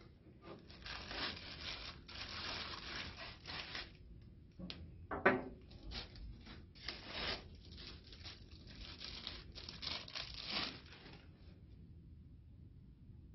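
Cardboard box and packaging handled and pulled apart: rustling, scraping and tearing in irregular bursts, with one sharp knock about five seconds in. It dies down to a quiet room near the end.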